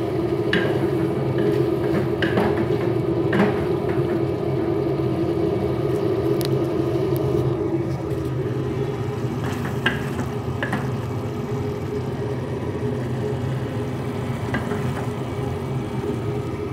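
A wooden spoon stirring a saucepan on a gas stove, with scattered light clicks against the metal, over a steady low whirring hum that does not change.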